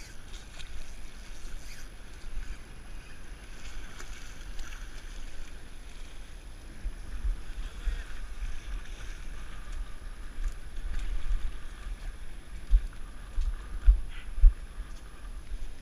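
Wind buffeting the microphone over the wash of the sea against the rocky shore, with a few short low thumps near the end.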